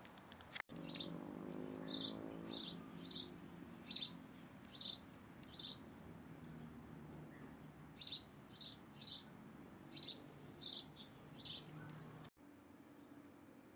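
A small bird chirping: short, sharp chirps about two a second, in two runs with a pause of a couple of seconds between them.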